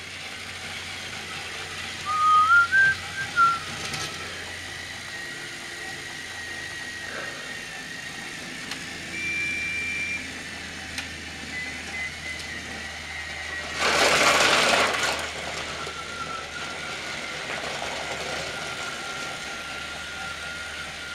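Battery-powered Trackmaster toy train engines whirring steadily as they run around plastic track. A short, loud, warbling whistle comes about two seconds in, and a loud rushing noise about a second long comes about fourteen seconds in.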